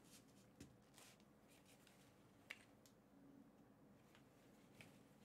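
Near silence with a few faint rustles and soft clicks of basketball shorts being handled, the clearest about two and a half seconds in.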